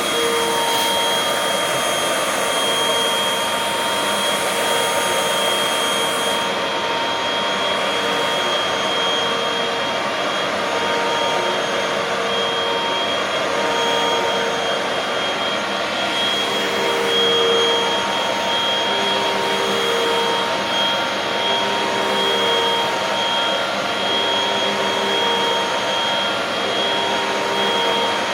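Hoover WindTunnel 2 High Capacity Pet bagless upright vacuum running steadily with a high whine as it is pushed back and forth over carpet, picking up sand.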